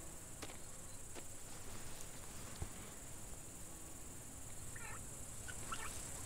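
Quiet cornfield ambience: a steady high insect buzz, with a few short clusters of bird chirps near the end.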